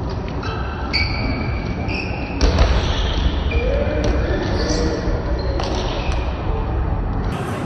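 Indoor volleyball rally: ball contacts and short squeaks of shoes on the court floor, with players calling out. A louder hit lands about two and a half seconds in.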